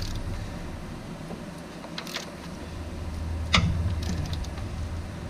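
A wrench on the crankshaft bolt turns a Toyota Solara engine over by hand, with a few sharp metal clicks and knocks about two and three and a half seconds in, over a low steady hum. The engine is being rotated to check that the new timing belt's marks line up again.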